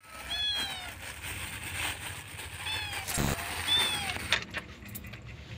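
Cat meowing three times, each short meow falling in pitch, with a dull thump about three seconds in.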